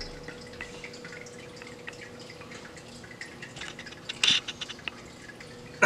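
Quiet room tone with a faint steady hum, scattered small clicks, and a short scratchy noise about four seconds in.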